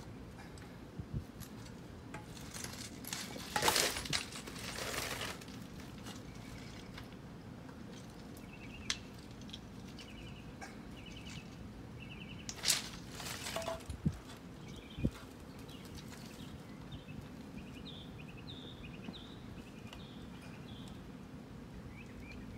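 Backyard ambience: songbirds chirping in short repeated trills through the second half, over a low steady background. Brief scuffing noises, the loudest sounds, come about four seconds in and again about halfway, with a few light knocks.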